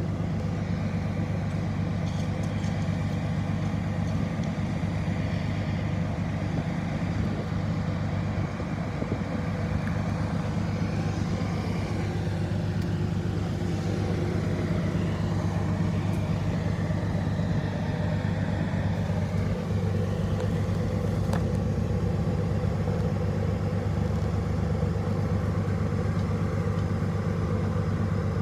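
A vehicle engine idling steadily: a constant low drone with no change in speed.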